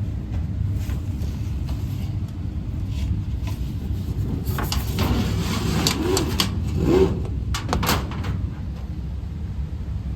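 Steady low rumble of a vehicle running, with a few clicks and short squeaks about halfway through, like a door or latch being worked.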